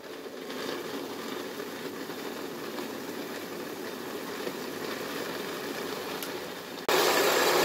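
Electric blender running steadily, blending a wet chilli, garlic and galangal sauce. Near the end it gets much louder for about a second.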